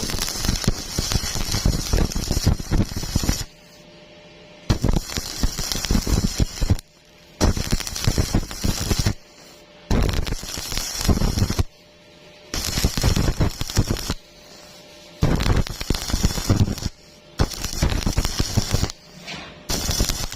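Stick welding arc crackling in about eight bursts of one and a half to three seconds, each broken off for about a second before the arc is struck again. This is the stop-start stitching used to bridge a wide gap in a vertical joint.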